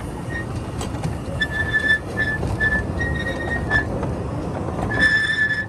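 Miniature railway train running on its track, with a steady rumble and a high, thin squeal from the wheels that comes and goes several times and sounds longest near the end.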